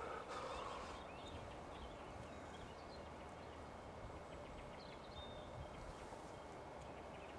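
Faint steady outdoor background noise with a low rumble, a few faint high chirps and ticks scattered through it.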